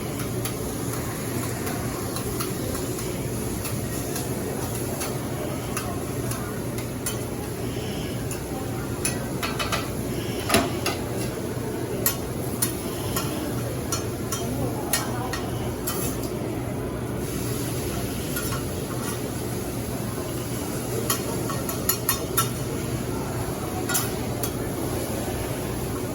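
Cheesesteak meat sizzling on a flat-top griddle, with sharp metal clicks and scrapes from the spatula scattered through, the loudest about ten seconds in, over a low steady hum.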